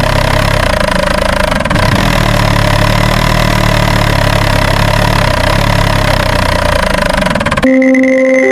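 A vehicle engine running steadily, cutting off suddenly near the end.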